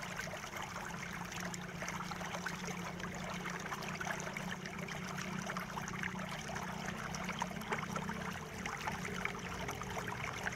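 Steady background hiss with a constant low hum, and faint scattered light clicks of a small screwdriver working screws out of a laptop's metal keyboard plate.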